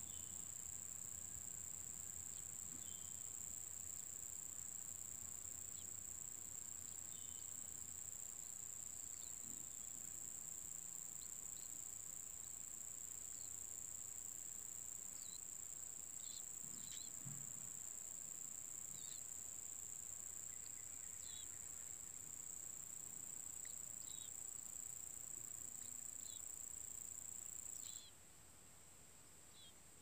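Faint, steady high-pitched insect trilling that cuts off suddenly near the end, with scattered short high chirps from birds.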